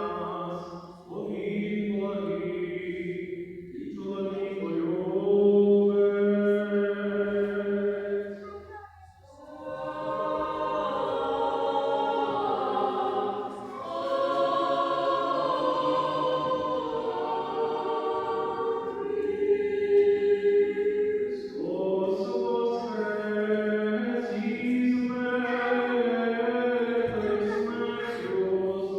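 Choir singing Byzantine-rite liturgical chant a cappella in held chords of several voices. The phrases are separated by short breaks, the longest about nine seconds in.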